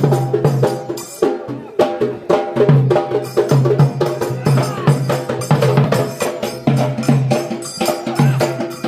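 Live Maharashtrian folk drumming for the Gaji dance: large dhol drums beating a fast, dense rhythm, with a held melody line playing over the drums.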